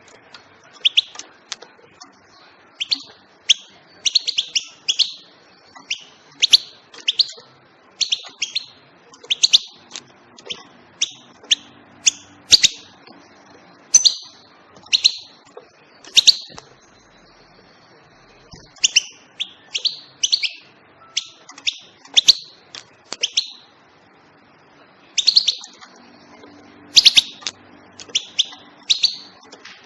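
European goldfinch singing: runs of quick, bright chirps and twitters, broken by pauses of a second or two.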